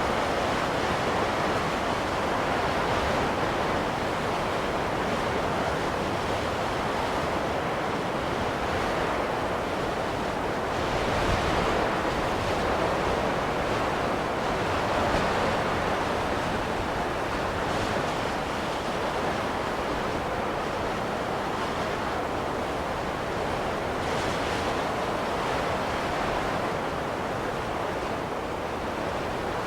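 Steady snowstorm wind blowing, a continuous rushing noise that swells gently in slow gusts.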